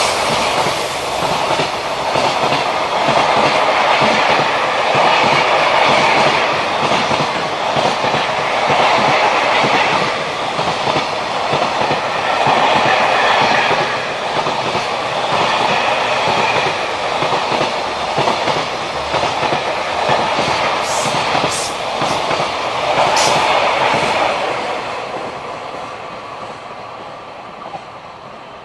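Container wagons of a JR Freight train rolling past, their wheels clattering steadily over the rails. The sound fades away over the last few seconds as the end of the train recedes.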